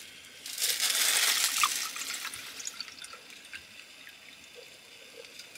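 White wine being poured from a bottle into wine glasses. The liquid pours in loudest for a second or two, about half a second in, then tapers off.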